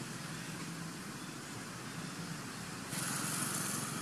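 Steady outdoor background noise: a low hum under an even hiss, turning louder and hissier about three seconds in.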